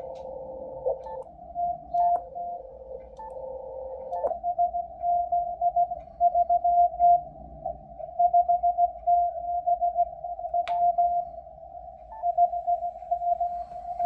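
Morse code from the Russian M12 numbers station received in CW on a Yaesu FTdx10 on 13.426 MHz: a tone near 700 Hz keyed in dots and dashes over narrow-filtered band hiss. A second, lower steady tone runs beneath it until about four seconds in, and a few light clicks sound along the way.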